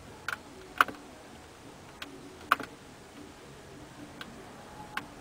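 About six sharp plastic clicks at irregular intervals, from the rotary push-knob on the dash of a BMW E39's on-board navigation monitor as it is worked through a menu.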